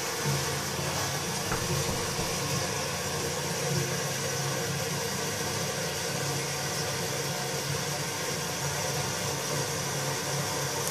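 Low-level toilet cistern refilling after a flush: a steady rush of water through the fill valve with a low hum.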